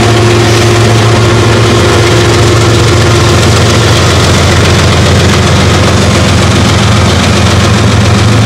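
Diesel locomotive engine running steadily at close range, a loud, even low hum; a higher steady tone in it fades out a few seconds in.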